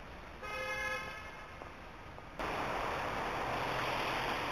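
A short car horn toot about half a second in. After an abrupt cut it gives way to a louder, steady hiss of street traffic on wet roads.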